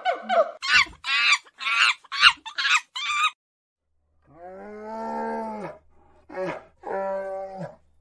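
Monkeys shrieking: a quick run of short, high-pitched calls that bend in pitch. After a pause a second animal gives two long calls, each held at one steady pitch, with a short call between them.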